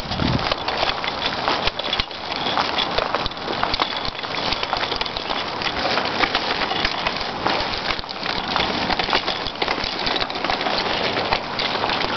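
A child's small bicycle rolling over brick paving, its wheels and frame rattling in a dense, steady crackle of small clicks.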